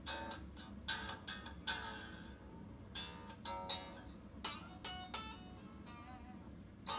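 2007 PRS Modern Eagle solid-body electric guitar played unplugged: a run of chords strummed and notes picked, each struck sharply and left to ring.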